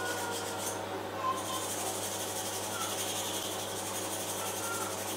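Hand-sanding a carved willow spoon with 600-grit Abranet mesh abrasive: a soft, even rubbing in repeated strokes, the last smoothing pass before oiling.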